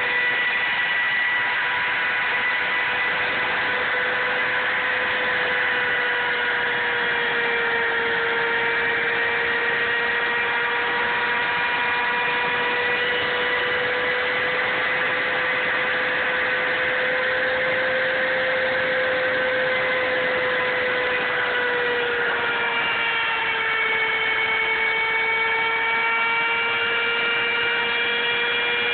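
A CNC router's spindle motor whining steadily as its 1/8-inch two-flute carbide straight bit engraves wood at 1/8 inch depth. The whine dips slightly in pitch a couple of times.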